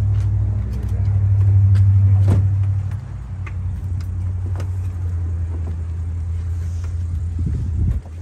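Steady low hum of a motor vehicle engine idling, strongest in the first few seconds, easing a little about three seconds in and cutting off near the end, with a few faint clicks over it.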